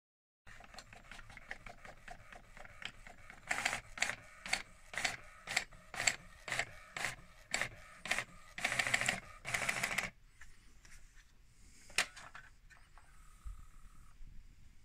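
Canon i70 portable inkjet printer running a print job: the print-head carriage sweeps across the page in strokes about two a second, followed by two longer runs of the paper feed. One sharp click comes later. The mechanism runs normally, but the compatible ink cartridge leaves the page almost blank, so the printer is not printing.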